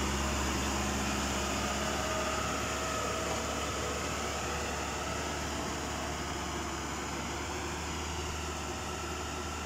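Hamm 311 single-drum roller's diesel engine running steadily as the roller drives off, its sound slowly fading as it moves away. The roller is moving under its own power with its drive crown newly refitted.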